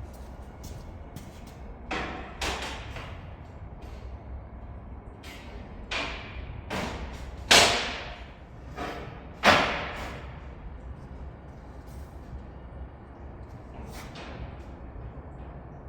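Cut steel flat bar being handled and set down: a series of irregular metal clanks, each ringing briefly, the two loudest about seven and a half and nine and a half seconds in, over a low steady hum.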